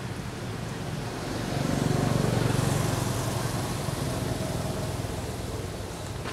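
A road vehicle passing by, its low engine and road rumble swelling to a peak about two seconds in and then fading away.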